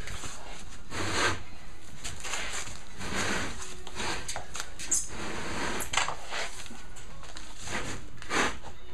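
Galvanized steel roof-rack parts clinking and knocking as the expanded-metal catwalk grating is set onto the rack's cross rails: several sharp metallic knocks, irregularly spaced, with light rattling between them.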